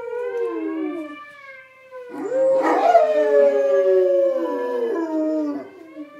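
A dog howling along with a recording of its own howls from computer speakers. Two long, wavering howls overlap and die away just after a second in. About two seconds in, a new howl rises steeply and then slides down over a steadier one.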